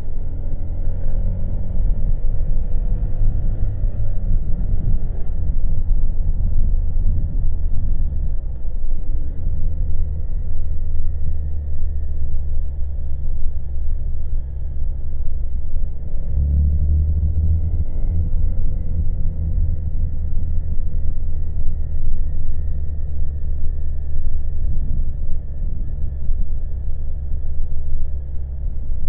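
Honda Monkey's small single-cylinder engine running under way, a steady low rumble. Its pitch rises a few times in the first few seconds, and the rumble swells briefly about sixteen seconds in.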